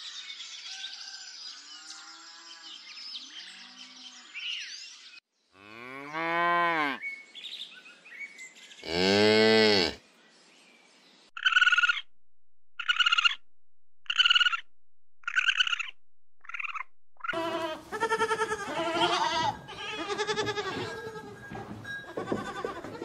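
A run of animal calls. Birds chirp for the first few seconds, then come two long low cattle moos, then six short high calls about a second apart. Near the end a goat bleats repeatedly in wavering calls.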